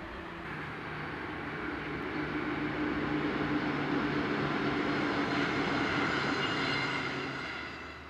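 Steady engine drone of a passing vehicle, growing louder over several seconds and dropping away near the end.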